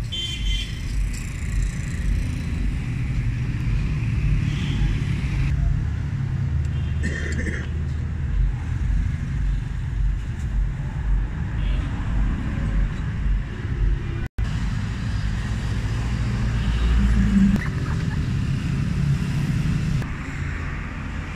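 Steady low rumble of a motor vehicle engine running, with a brief cut-out about two-thirds of the way through.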